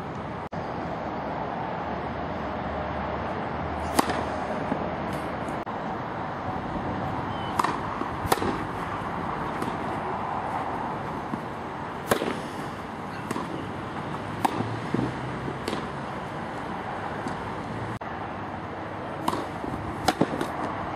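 Tennis rally: sharp pops of racket strings striking the ball every few seconds, the loudest about 4 and 12 seconds in, with lighter clicks of the ball bouncing on the artificial grass court between them. A steady hiss lies underneath.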